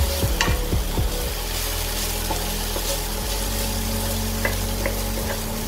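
Sliced onion and chopped garlic sizzling in hot oil in a nonstick pan as they are sautéed until soft. A wooden spatula stirs them, knocking against the pan about four times a second for the first second or so, and then the steady sizzle carries on.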